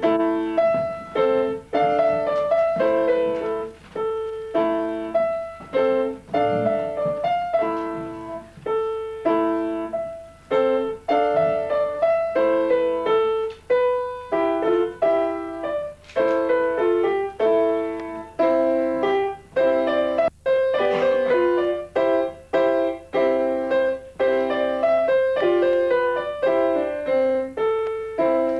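Piano playing a simple beginner's piece in the middle register: a melody of separate notes over a few accompanying notes, in short phrases with brief pauses between them.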